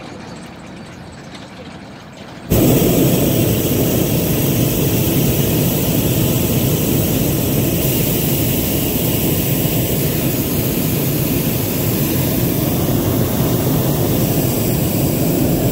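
Hot air balloon's propane burner firing in one long, steady, loud blast that starts suddenly about two and a half seconds in and holds for about thirteen seconds; before it, only a quiet steady background.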